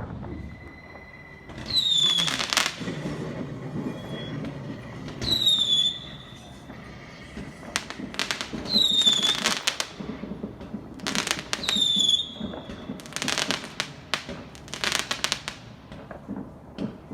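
Fireworks going off: four shrill whistles, each falling in pitch and then holding, with bangs and bursts of crackling between them.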